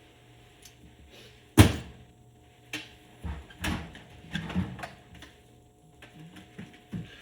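Hand tools being handled during mechanical work: one sharp, loud metal clank, then a string of lighter knocks and clatters.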